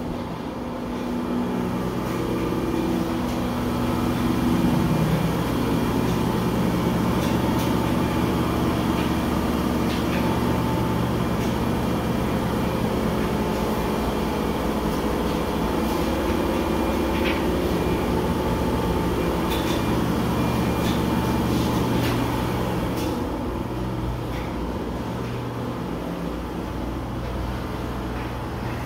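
A steady low mechanical hum with a few held tones that shift now and then, and scattered faint clicks.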